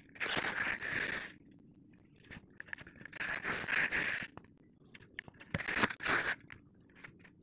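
Kinetic sand crunching in three bursts of about a second each, with small crackles between them.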